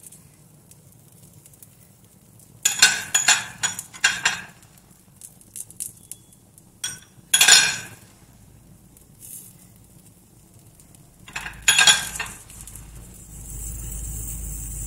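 A metal spoon clinks and scrapes against kitchen ware in three short bursts. Near the end, oil spooned around the edge of a dosa starts to sizzle on the hot iron tawa.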